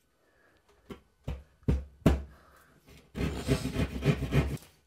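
Keyhole saw cutting drywall at the edge of a ceiling hole: a few sharp knocks, then about a second and a half of quick rasping saw strokes.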